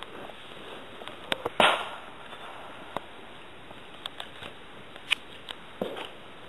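A few irregular sharp pops and cracks over a steady low hiss, the loudest about a second and a half in.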